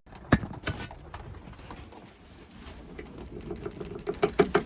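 Posca paint marker being primed: a few sharp clicks, then its nib pressed down again and again against a wooden surface in a quick, even tapping, about five or six taps a second, to get the paint flowing.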